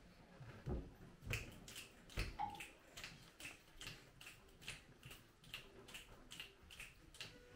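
Faint, steady finger snapping from the ensemble, about two and a half snaps a second, setting the beat for a train song.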